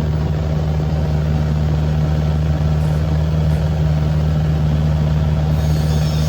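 A heavy truck engine running steadily at a constant speed, with an even low hum.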